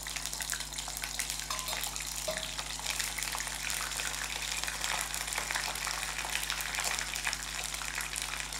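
Ginger paste frying in hot mustard oil with whole spices, a steady crackling sizzle with the oil spattering.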